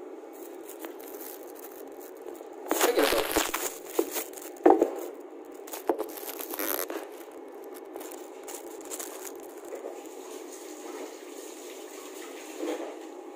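Handling noise as the recording phone is picked up and repositioned: rustling and scraping with several sharp knocks, most of it bunched in the first half, over a steady background hum.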